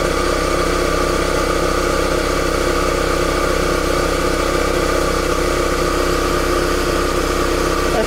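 SkyVac Interceptor gutter vacuum running steadily on its on-board Honda petrol engine, a constant engine hum under the rush of the suction, working at full suction as the hose end tool lifts a heavy sack.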